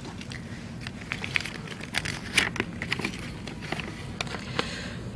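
A sheet of paper being handled and unfolded: a scatter of small crackles and rustles over a steady low hum.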